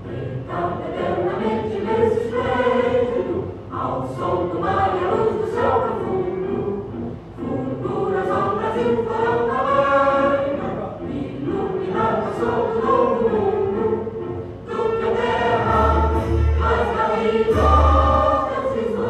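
An anthem sung by a choir with orchestral accompaniment, with a few deep bass hits near the end.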